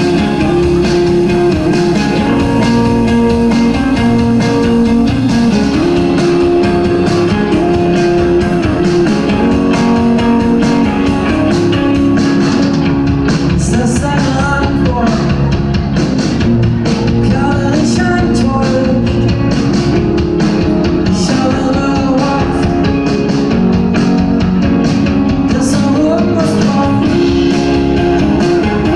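A band playing live on electric guitars, bass and drums, with steady drum hits under sustained guitar chords and a voice singing.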